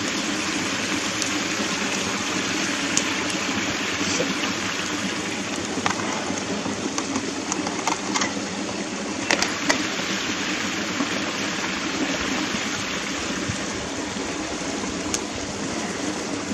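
Steak, kebabs and vegetables sizzling on a charcoal grill: a steady hiss with a scattering of sharp crackles and pops from the cooking fat.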